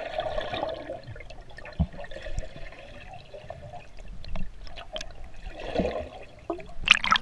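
Muffled underwater sound of swimmers in a pool: rushing water and bubbles with scattered small clicks, heard from a camera held underwater. A loud burst of splashing comes near the end.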